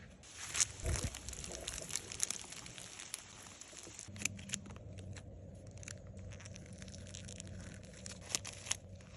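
Crinkling, rustling handling noises with many short sharp clicks and crackles, busiest in the first couple of seconds, over a steady low hum that grows louder about four seconds in.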